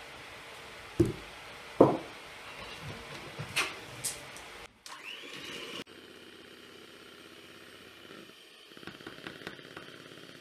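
Kitchen handling sounds: two sharp knocks about a second apart, then lighter clicks and a faint steady background.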